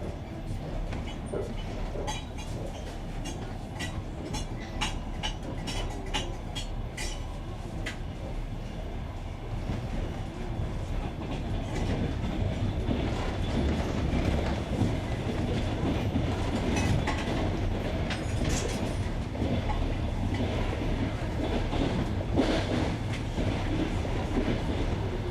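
Passenger train wheels clattering over jointed rails, heard from aboard the coach: a rhythmic clickety-clack over a steady running rumble that grows louder about ten seconds in.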